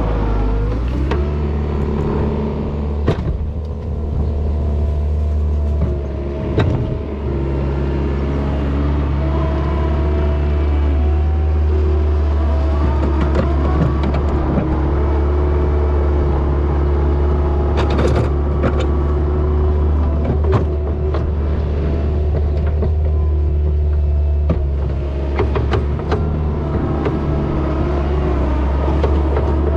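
A vehicle engine running steadily, with a low hum and pitch that shifts a little, and occasional short knocks and rattles.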